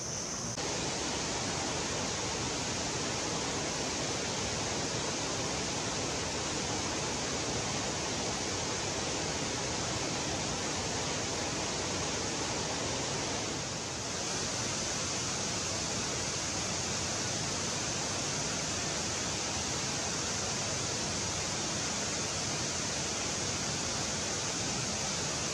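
Waterfall or fast forest river rushing, a steady even roar of falling water with a steady high hiss above it. It dips briefly about halfway through.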